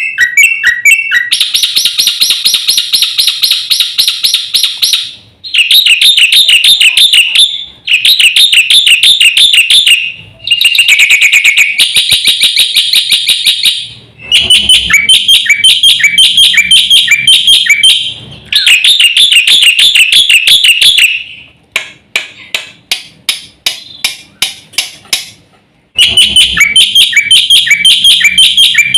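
Black-winged myna (jalak putih) singing loudly in a full, varied song. It runs in bursts of fast, rapidly repeated chattering and whistled notes a few seconds long, with short breaks between them, and a run of separate sharp clicking notes about two-thirds of the way through.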